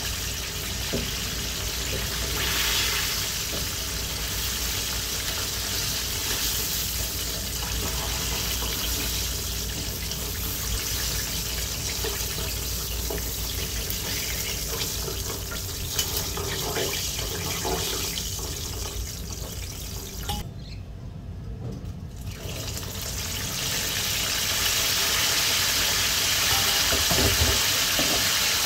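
Chicken wings deep-frying in hot oil in a pan: a steady, bubbling sizzle, with a few light knocks of tongs as the wings are moved. About two-thirds of the way through the sizzle briefly drops away, then comes back louder as the wings go back in for a second fry.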